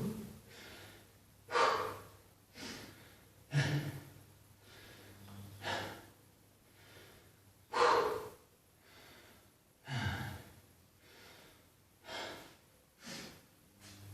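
A person breathing hard from exertion: loud, noisy exhales about every two seconds, with fainter breaths between.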